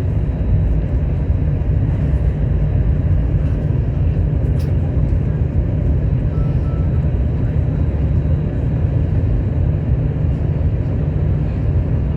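Steady low rumble inside an Airbus A321's passenger cabin from its engines running, holding an even level throughout.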